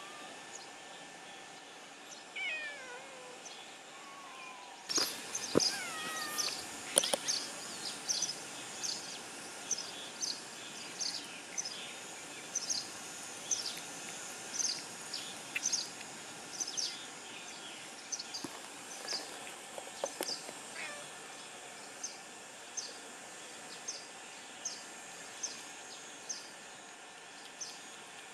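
A domestic cat meows a few times with short falling calls, then eats a starchy homemade fish treat from a pan, making short wet smacking chewing sounds that repeat about once a second.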